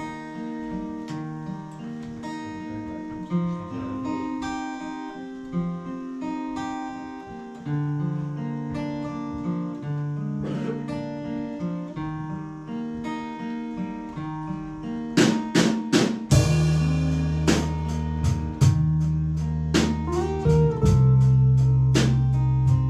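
Acoustic guitar playing an instrumental intro, picking single notes at first. About fifteen seconds in, strummed chords and a deep bass line join and the music gets louder.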